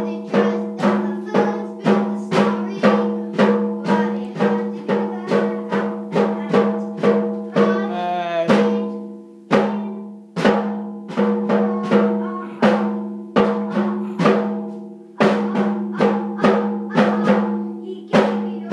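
A child's toy drum kit beaten with sticks in a steady, uneven beat of roughly two strikes a second, the small metal-shelled drums ringing with a pitched tone after each hit. The beat breaks off briefly just after the middle, with a short wavering sound about eight seconds in.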